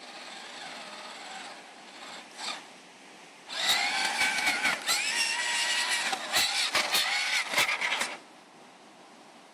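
Electric drive motor and gearbox of a hobby-grade-converted RC crawler truck whining, faint at first, then loud for about four and a half seconds from about three and a half seconds in, its pitch rising and falling with the throttle. Sharp clicks run through the whine.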